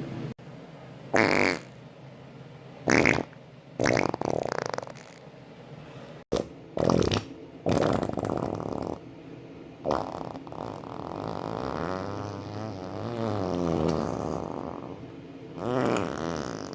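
Human farts cut one after another: several short, loud blasts in the first half, then a long drawn-out fart of several seconds whose pitch wavers, and another short one near the end.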